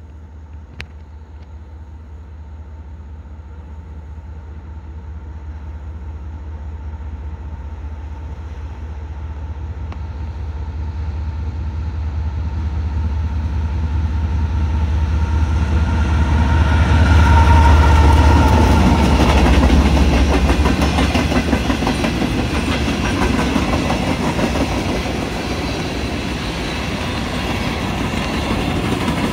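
Diesel freight locomotive approaching and passing, its deep engine rumble building to a peak about 18 seconds in. After that, a long train of coal hopper cars rolls by with steady wheel clatter over the rails.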